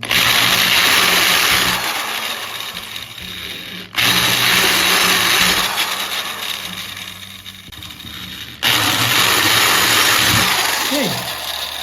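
Electric drill with a small bit drilling pilot holes in a length of pipe, three runs, each starting abruptly and easing off.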